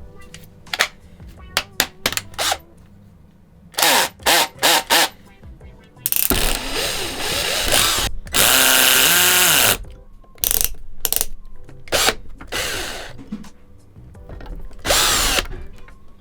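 A handheld power driver backing out the small screws of a resin printer's tank frame in short bursts of a few seconds. The motor's pitch rises and falls within each run, with light clicks of handling in between.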